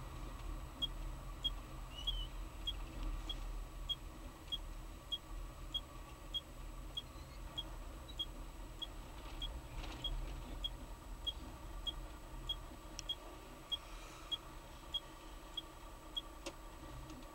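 A short, high electronic beep repeating evenly about every 0.6 seconds inside a moving car, over the steady low rumble of engine and road; the beeping stops about a second before the end.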